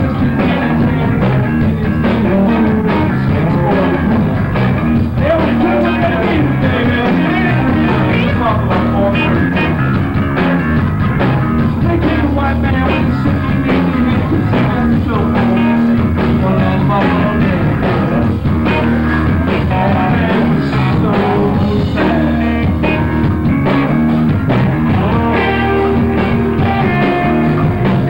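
Live rock band playing loud and without a break: electric guitar with singing into microphones.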